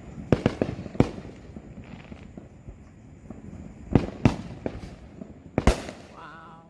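Consumer fireworks exploding: a scattered run of sharp bangs, several close together in the first second, a pair about four seconds in and a loud one near the six-second mark.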